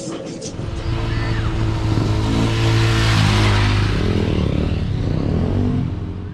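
Dirt bike engine held at high, steady revs during a wheelie, its pitch wavering in the second half.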